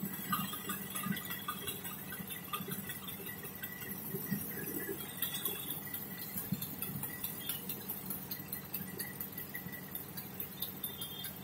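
Traffic stopped in a jam, heard from an auto-rickshaw: a steady low engine hum of idling vehicles with faint scattered clinks.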